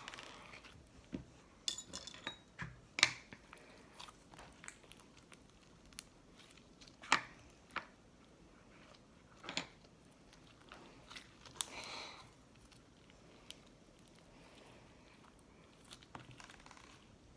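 Slime and putty being kneaded and stretched by hand: soft irregular squelching with scattered sharp clicks and pops, the loudest about 3 and 7 seconds in.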